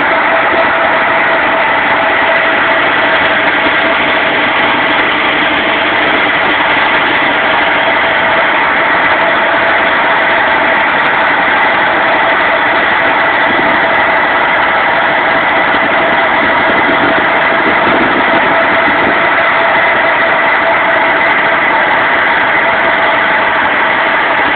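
A fire engine's pump engine running loudly and steadily at a constant speed, with a steady hum in it, supplying the fire hoses.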